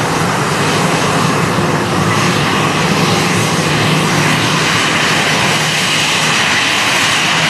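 Airbus A321's twin jet engines running steadily at low taxi thrust as the airliner taxis close by, a mix of rumble and whine. The whine grows a little stronger near the end as the aircraft turns toward the microphone.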